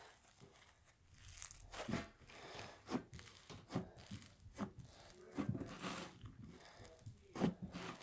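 Pink cloud slime mixed with kinetic sand being pressed and squeezed by hand, giving an irregular sizzly crackle of many small pops and tears from about a second in.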